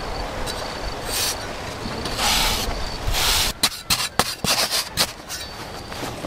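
A steel cleaver scraping into dry, sandy soil. There are three drawn-out scrapes, then a quick run of sharp chops and knocks about three and a half seconds in as the blade digs out a shallow pit.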